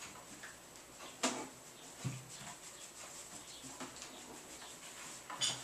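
Faint handling sounds from a plastic storage bin as a pet rat is lifted out of it: a sharp click about a second in, a soft low thump about two seconds in, and a few light taps and rustles.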